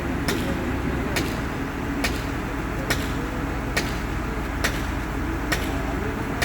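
Steady low machine or traffic rumble, with a sharp click repeating evenly a little faster than once a second.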